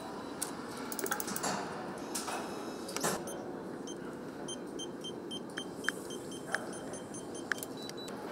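Engine assembly hall sounds: sharp metallic clicks and knocks of tools on an engine block, then a quick series of short electronic beeps, about four a second, over a steady room hum.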